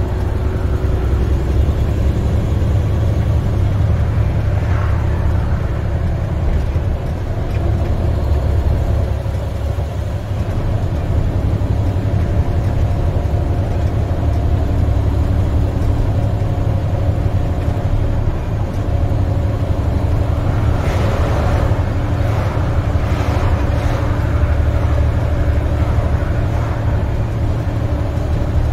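Diesel engine of an International semi tractor with a MaxxForce 13 engine, heard inside the cab: a steady low drone with tyre and road noise while cruising. A brief rush of noise comes about three-quarters of the way through.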